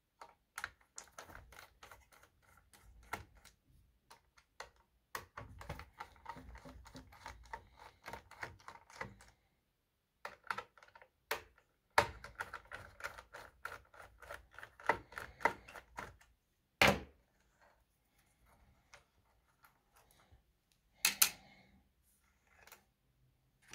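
T20 Torx screwdriver backing screws out of the sheet-metal case of a Volkswagen RCD 220 car radio: long runs of rapid small clicks and ticks as the screws turn. A louder knock comes about 17 seconds in and two sharp knocks near 21 seconds as the metal parts are handled.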